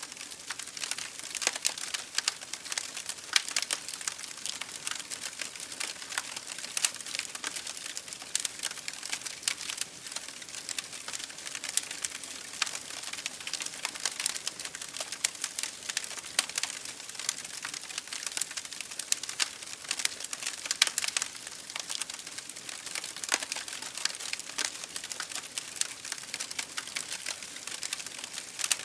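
Wood fire burning in an open fireplace: a constant stream of sharp, irregular crackles and pops over a soft hiss.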